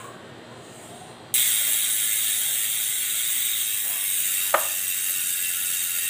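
Cole freehub's pawls ratcheting as the wheel freewheels: a very loud, rapid, steady buzz that starts suddenly about a second in. There is a single sharp click a few seconds later.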